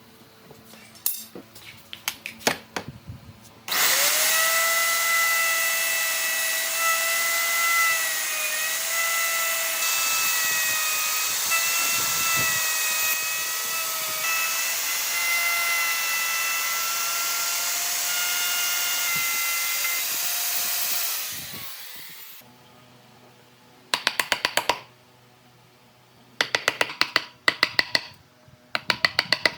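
An electric power tool runs with a steady high whine for about seventeen seconds, then cuts out and winds down. Light clicks come before it starts, and short bursts of rapid clicking follow after it stops.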